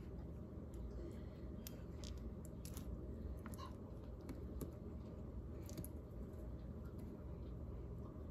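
Steady low hum of a quiet room with faint, scattered small clicks of hands handling battery leads and wires.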